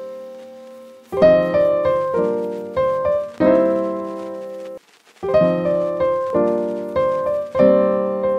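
Background piano music: chords struck one after another and left to ring out, with a brief pause about five seconds in.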